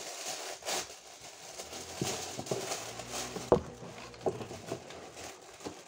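Cardboard box being handled: rustling and scraping of the card, with several light taps and knocks, the sharpest about three and a half seconds in.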